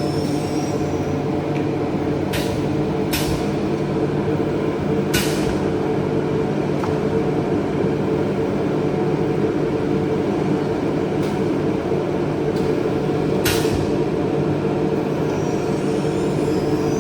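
CNC panel-cutting machine running with a steady hum, cut by short sharp hisses of compressed air about four times. A high whine shifts in pitch near the start and again near the end.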